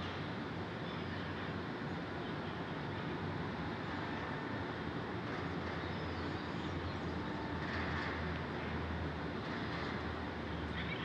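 Steady distant city ambience heard from high above the streets: a low traffic rumble and hiss, with a few faint short high chirps here and there.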